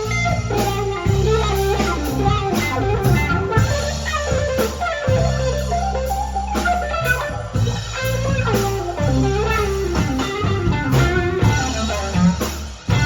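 Live blues band in an instrumental passage: an electric guitar plays a lead line with bent notes over bass guitar and a drum kit.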